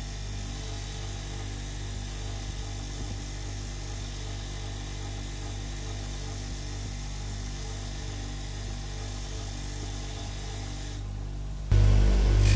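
Bench grinder wire wheel running with a steady motor hum and a hiss as a rusty steel rod is held against it to brush off the rust. Loud music cuts in near the end.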